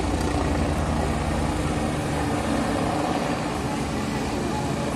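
Helicopter flying low overhead: a steady engine-and-rotor drone with a fast low beat, growing slightly quieter as it moves off.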